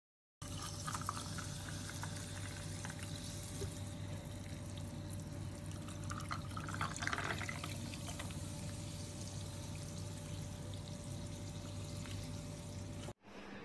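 Chilled soda poured in a steady stream from a plastic bottle into glass jars of ice, a little louder about halfway through. A faint steady hum runs underneath, and the sound cuts off abruptly near the end.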